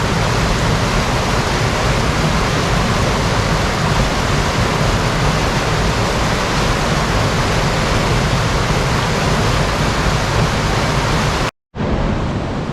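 Waterfall: a steady, loud rush of falling water. Near the end the sound cuts out completely for a moment, then a somewhat quieter rush of water resumes.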